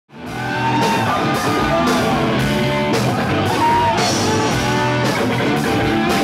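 Rock band playing with a sung lead vocal over a steady drum beat of about two strokes a second, starting suddenly after a moment of silence.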